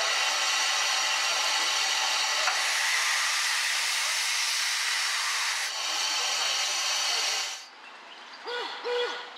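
Steady loud hiss that cuts out about eight seconds in, followed by two short pitched tones near the end.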